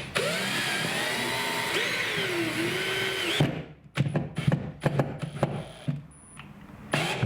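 Cordless drill driving a screw into the wood backing of a drywall patch, its motor whine rising and falling in pitch for about three seconds, then a series of clicks and knocks.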